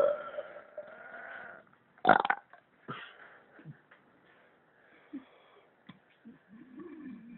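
A man belching and hiccuping. A belch trails off at the start and a single sharp hiccup comes about two seconds in. Small throat clicks follow, and a short, low, wavering belch comes near the end.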